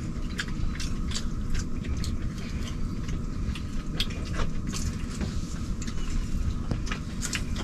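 People eating barbecued turkey wings and potatoes with their fingers: scattered small clicks and smacks of chewing and picking food off a plate, over a steady low hum.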